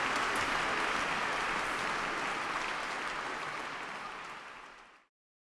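Audience applause, steadily fading and cut off to silence about five seconds in.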